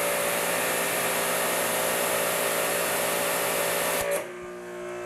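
Ryobi 2700 psi electric pressure washer running at full pressure with the trigger held, spraying through its 40-degree nozzle at about 2,500 psi: a steady hiss with a high whine. About four seconds in the trigger is released and the spray cuts off, leaving the quieter steady hum of the unit.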